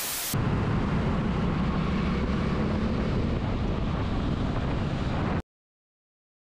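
A brief hiss of TV static, then a motorcycle engine running steadily at cruising speed with wind rushing over the microphone. The sound cuts off abruptly about five seconds in, leaving dead silence.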